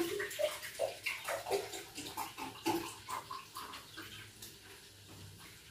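Juice glugging out of a carton into a glass: a quick run of short gurgles that thins out about four seconds in.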